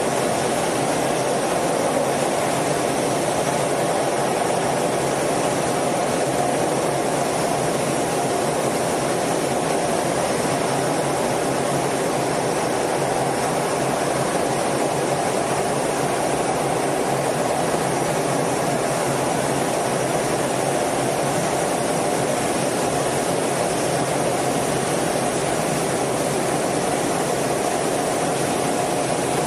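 Steady jet engine and airflow noise heard inside a jet fighter's cockpit, holding at an even level throughout.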